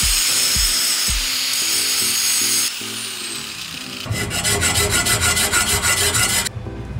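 An angle grinder with an abrasive disc grinding the bare steel frame tubes of a 1968 Norton Commando for the first two and a half seconds or so. From about four seconds in, a hand file rasps back and forth along a frame tube in quick, even strokes. Background music with a light beat runs underneath.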